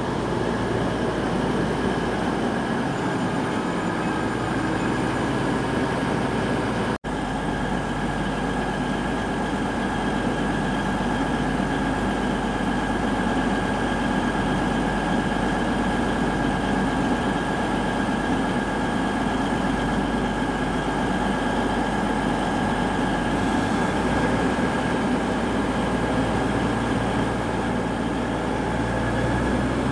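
CrossCountry diesel passenger train standing at a platform, its engines idling with a steady hum and a constant high whine. The sound drops out for an instant about seven seconds in.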